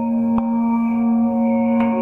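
Ambient meditation music of long, overlapping ringing tones in the manner of singing bowls, with two faint ticks, one about half a second in and one near the end.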